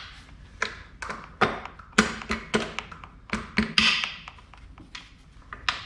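Irregular taps, clicks and knocks, a dozen or so spaced unevenly, as parts of a 1982 Honda CB900C's engine and driveline are wiggled and worked onto their dowel pins for alignment.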